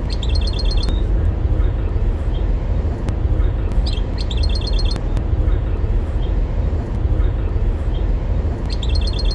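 European goldfinch singing three short bursts of rapid, high twittering song over a steady low rumble.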